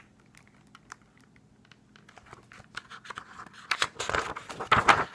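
Paper crinkling and rustling from a picture-book page being handled and turned: faint scattered ticks at first, building to a louder scraping rustle near the end.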